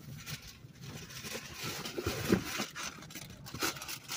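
Handling noise: rustling and scraping of packaging and a box being moved about, with scattered light knocks and a brief louder bump about halfway through.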